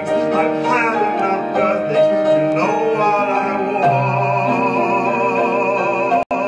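Man singing a Broadway ballad over a backing track, holding one long note with vibrato from about four seconds in; the sound cuts out for an instant near the end.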